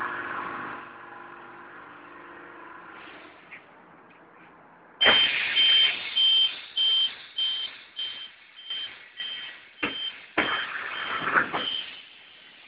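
Snap-on Quadriga tyre changer sounding a high warning beep about twice a second, with a noisy mechanical rush swelling along with each beep, while its wheel lift raises the wheel onto the machine. The beeping starts about five seconds in and stops about a second before the end; before it there is only a faint hum.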